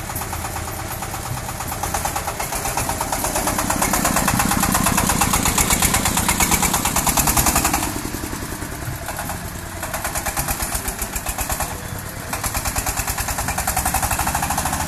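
The single-cylinder diesel engine of a self-propelled mobile bandsaw mill runs with a rapid, even chugging as the machine is driven on a test run. It grows louder for a few seconds, drops back about eight seconds in, and swells again twice.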